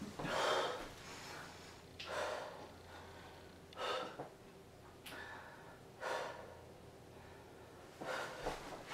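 A man breathing hard while recovering from pull-ups, with a loud breath about every two seconds; the strongest one comes just after the start.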